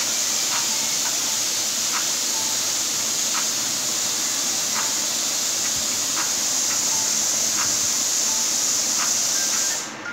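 A steady, loud hiss with faint short chirps or ticks through it, played from a TV's soundtrack; it cuts off suddenly near the end.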